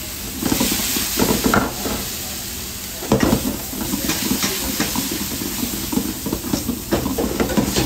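Metal ladle scraping and stirring fresh egg noodles with shrimp and onion in a steel wok, over a steady sizzle of hot oil. The strokes come in quick irregular runs, the loudest about three seconds in.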